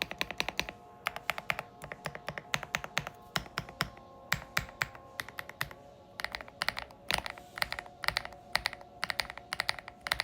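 Typing on a stock MechLands Vibe75 75% mechanical keyboard: deep, thocky keystrokes in quick runs with short pauses between them, over background music.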